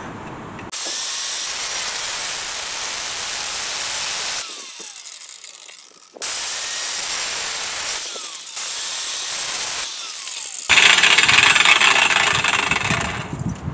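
Angle grinder with a cutting disc cutting through the rusted sheet-steel rocker panel, a steady hissing screech in three runs. It winds down a little before halfway, and the last run is the loudest.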